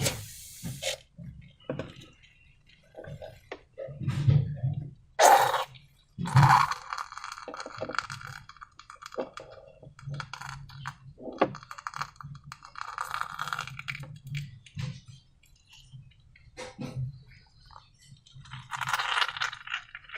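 Slime being worked by hand with transparent balloons: an irregular run of sticky squelches, clicks and crackles, some brief and some lasting about a second.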